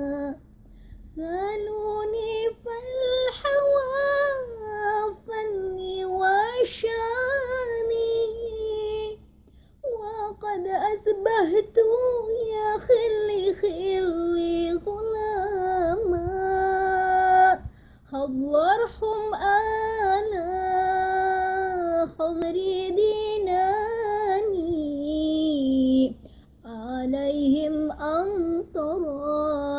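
A young woman's voice singing an Arabic sholawat (Islamic devotional song) solo and unaccompanied, in long ornamented phrases broken by short pauses for breath about a second in and again roughly every eight or nine seconds.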